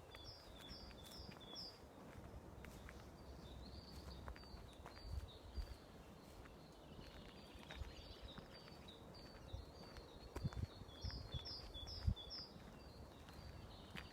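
Songbirds singing in woodland. One repeats a quick phrase of about four high notes near the start and again near the end, with other faint chirps in between. Now and then a soft footstep sounds.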